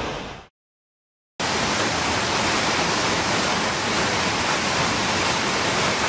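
A large waterfall rushing, a steady, even roar of water that cuts in suddenly after about a second of silence.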